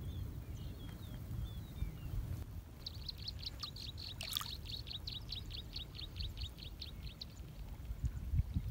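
A bird calling in a quick run of short high chirps, about five a second, for some four seconds mid-way, with a few scattered chirps before it, over a steady low rumble.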